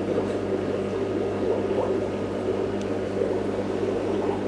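Aquarium pump humming steadily with water bubbling and churning.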